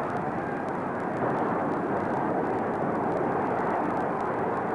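Steady, even noise hiss with a low rumble and no distinct events, only a few faint ticks: the background noise of a film transfer with no soundtrack.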